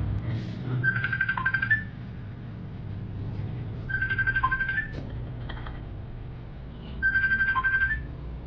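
A phone ringtone: a trilling electronic ring that repeats three times, about every three seconds, each ring ending with a short lower blip, over a steady low hum.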